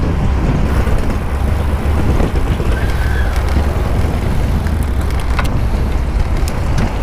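Steady wind rumble on a helmet-mounted camera's microphone from riding a bicycle, with car traffic passing close by.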